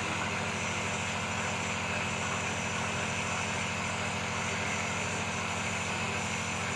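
Home compressor nebulizer running with a steady, even mechanical hum that holds without change.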